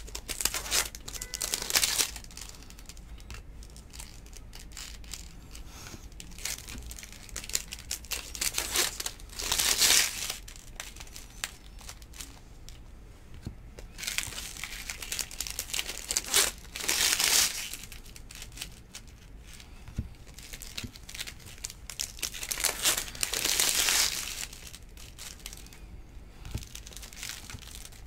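Plastic trading-card pack wrappers crinkling, with cards being handled and shuffled. The crinkling comes in about five short bursts a few seconds apart, over a quieter rustle in between.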